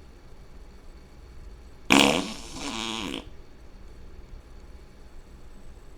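A single loud fart about two seconds in, lasting just over a second: a sharp, loud start that drops to a softer trailing flutter whose pitch wavers.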